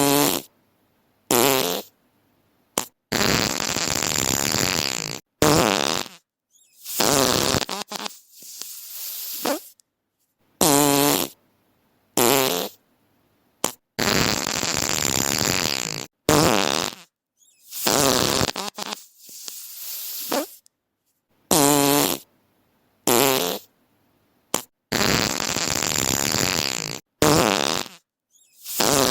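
A rapid series of about twenty fart sound effects, some short and sharp, some drawn out for a couple of seconds with a wavering, buzzing pitch, each divided from the next by a brief silence.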